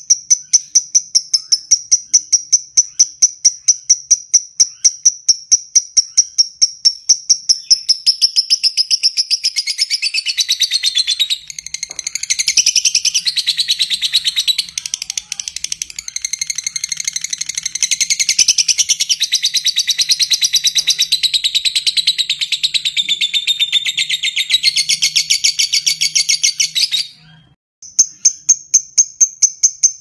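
Fischer's lovebird calling. First comes a steady run of sharp, evenly spaced ticking chirps, about three a second. From about eight seconds in it breaks into a long, fast, rattling chatter, the lovebird's 'ngekek', which runs for nearly twenty seconds and cuts off suddenly. The ticking chirps then start again.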